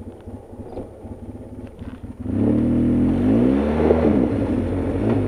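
Polaris ATV engine, low and quiet at first, then about two seconds in it revs up and surges up and down, cutting out against the reverse limiter because the backup override button isn't pressed.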